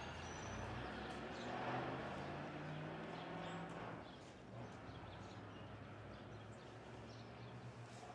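Faint street ambience: a low steady hum of distant traffic with a few faint, short high chirps.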